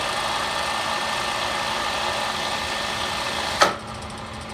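Solberga drill press running steadily in gear at 307 rpm spindle speed, with a steady gear hum. About three and a half seconds in, a sharp click as the switch is thrown, after which the machine runs on much quieter.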